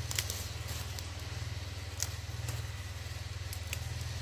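Small engine of a grass-cutting machine running steadily, a low even drone, with a few faint short clicks over it.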